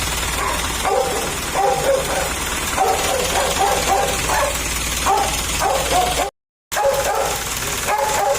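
A dog barking and yipping repeatedly in short pitched calls, about two a second, over a steady background noise.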